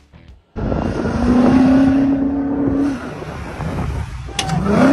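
A large SUV's engine revving hard as it drives over sand dunes: it holds high revs for about two seconds, eases off, then rises again near the end as the SUV leaps off a dune crest.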